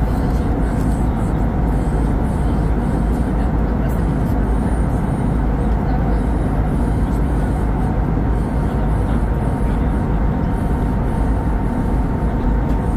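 Steady cabin noise of an Airbus A320neo in flight at altitude, heard inside the cabin by the engine: an even, heavy rumble of the jet engine and airflow with a faint steady tone above it.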